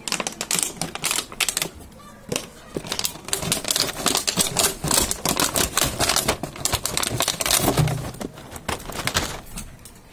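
A dog chewing and pawing at an empty plastic water bottle on a plastic sheet: rapid, irregular crinkling and clicking of thin plastic, stopping shortly before the end.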